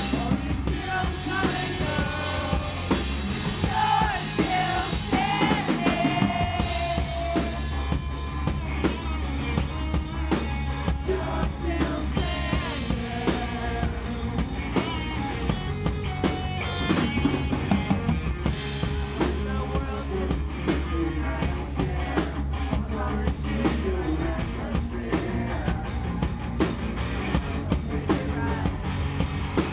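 Live rock band playing, with a loud drum kit and electric guitar under a male lead vocal.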